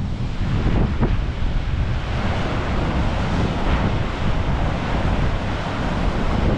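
Strong wind buffeting the microphone over the steady wash of heavy surf breaking against the foot of the cliff.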